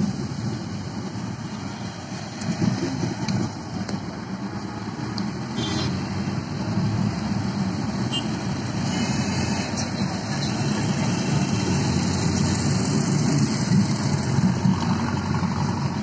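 Steady engine hum and road noise heard from inside a moving car's cabin, with the sound of surrounding traffic.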